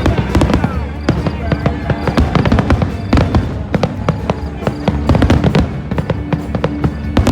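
Fireworks going off in quick succession: a dense string of sharp bangs and crackles, several a second, with music playing underneath.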